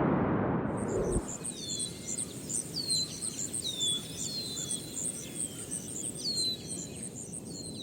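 Birds calling outdoors: a fast, even run of high chirps with a falling whistled call about once a second. Surf noise fades out in the first second.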